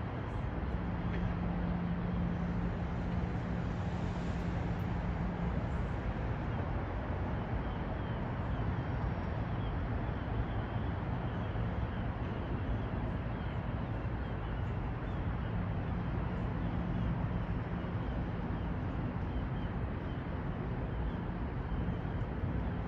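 Steady city traffic rumble along a waterfront street, with a low steady hum that drops out after the first few seconds and comes back twice later.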